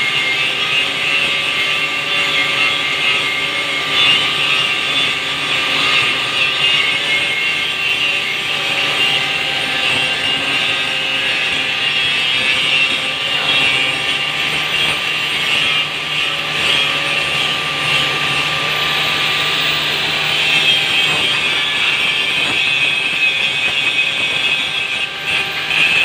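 Handheld angle grinder running continuously with its disc ground against metal: a steady, high-pitched grinding noise with the motor's whine under it.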